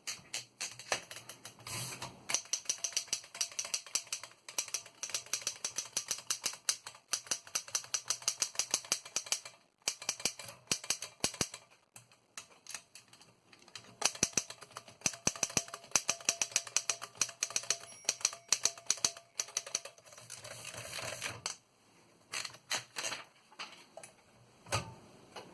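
1915 Royal Standard No. 5 manual typewriter being typed on: runs of rapid keystrokes clacking, several a second, broken by a few short pauses.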